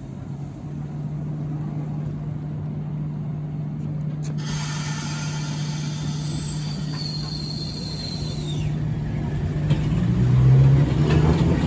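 Randen electric tram at a platform humming steadily. About four seconds in, a hiss starts abruptly and cuts off about four seconds later. Near the end the tram pulls away with a whine rising in pitch, getting louder.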